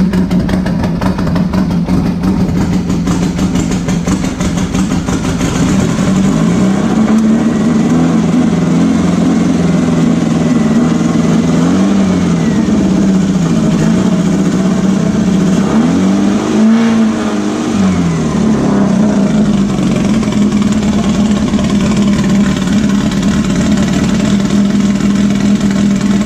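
Air-cooled VW flat-four engine of a beach buggy running cold and lumpy from a misfire, caused by a blocked idle jet in one of its carburettors. It idles, is held at raised revs from about six seconds in, is revved higher around the middle, and drops back to idle near the end.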